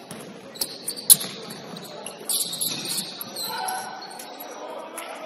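Basketball game play on an indoor court: the ball bouncing and scattered sharp knocks, the loudest about a second in, with high squeaks in between.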